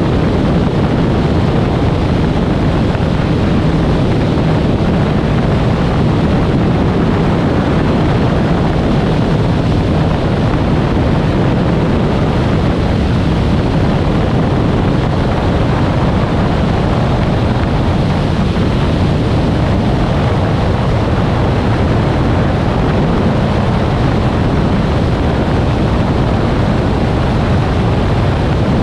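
Cessna A185F's engine and propeller running steadily in flight, mixed with heavy wind rush on a microphone mounted outside the aircraft in the slipstream.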